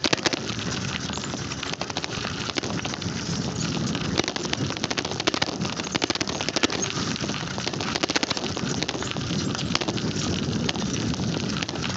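Riding noise of a moving bicycle: wind on the microphone with a continuous rattle of small clicks as the bike rolls and jolts along.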